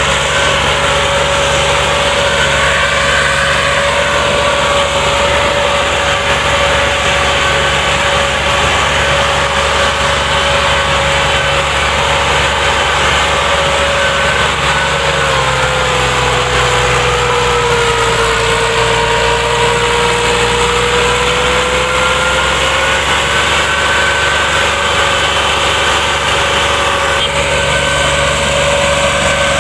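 Massey Ferguson 240's three-cylinder diesel engine running steadily while pulling a heavily loaded sugarcane trolley. About halfway through, its note sags for several seconds under the load and then climbs back.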